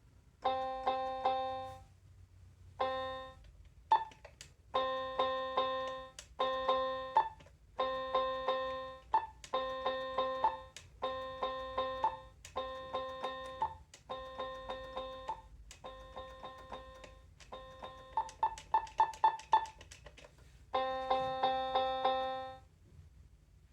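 Children's electronic toy keyboard playing short groups of repeated notes, mostly on one pitch, with brief pauses between groups. A quick run of higher notes comes near the end.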